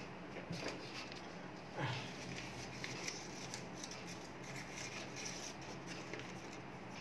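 Small metal parts of a hydraulic final drive motor being handled: scattered light clicks and a slightly louder knock about two seconds in, over a steady low hum.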